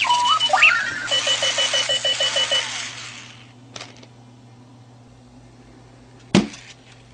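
Clocky runaway alarm clock sounding its random robotic beeps and warbles, then a fast pulsing beep, dying away about three seconds in. A faint click follows, and a single sharp knock near the end.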